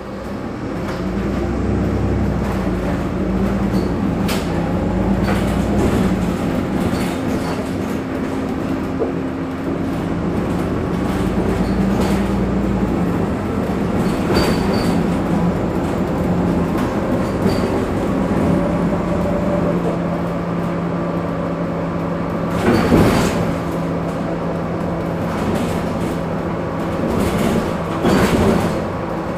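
Heuliez GX 137 city bus standing with its engine idling: a steady hum with a couple of held low tones. Two short, louder bursts of noise come near the end.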